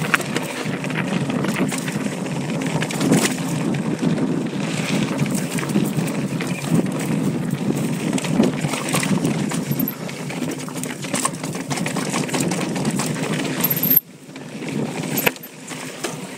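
Intense ACV mountain bike rolling fast down a rocky dirt singletrack: steady crunch and rumble of the tyres on loose dirt and stones, with frequent clicks and rattles from the bike as it takes the bumps. Near the end the rumble drops off suddenly, leaving a few scattered clicks.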